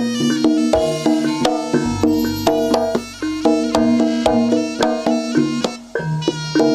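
Javanese jaranan (kuda lumping) accompaniment music: quick, even runs of struck pitched gamelan notes over kendang drum strokes.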